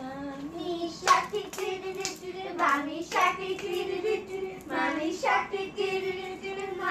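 Singing in a high, child-like voice with held, wavering notes, punctuated by sharp hand claps several times.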